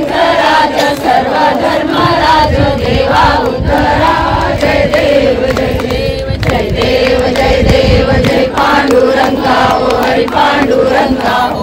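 A crowd of voices singing a Marathi devotional aarti together, a continuous group chant.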